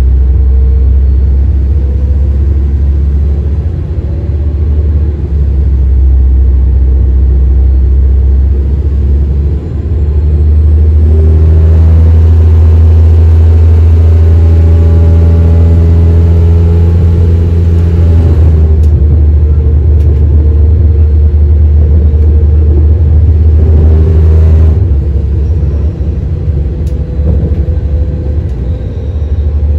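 Diesel engines of an Alstom Coradia LiNT41 multiple unit running while the train stands still: a loud, steady low drone. About ten seconds in it grows louder and fuller, with a higher hiss joining for several seconds, then drops back to the lower drone about twenty-five seconds in.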